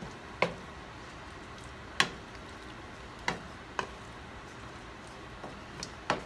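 Wooden spoon stirring potatoes in cream in a stainless steel skillet, knocking sharply against the pan about six times at uneven intervals, over a low steady hiss from the simmering pan.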